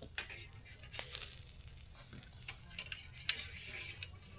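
Campfire crackling: a soft hiss with irregular sharp pops, the loudest about a third of the way in and near the end.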